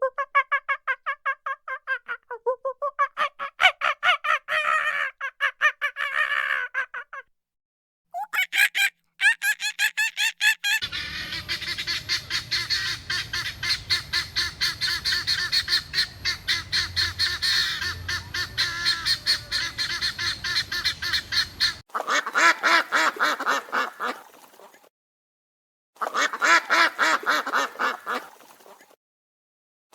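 Domestic fowl calling in fast runs of repeated calls, several short recordings spliced together with sudden silent breaks between them.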